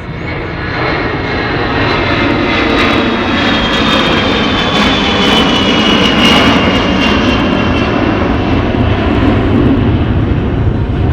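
Boeing E-3 Sentry AWACS jet with four turbofan engines making a low pass. Its engine noise swells over the first few seconds and then holds loud, with a high whine that slowly falls in pitch midway through.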